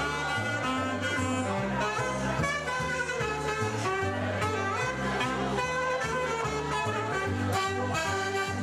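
A saxophone group playing a jazz tune live, several saxophones sounding in harmony over a moving low line.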